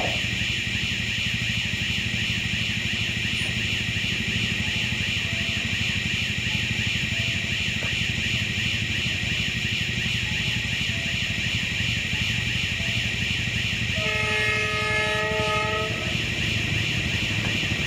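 Diesel locomotive approaching with a low engine rumble, sounding one horn blast of about two seconds near the end, over a steady high-pitched drone.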